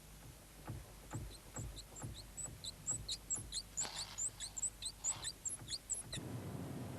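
A rapid, uneven series of short high-pitched squeaks with soft knocks beneath them, growing denser and then stopping suddenly about six seconds in: the mystery squeak the car is being searched for.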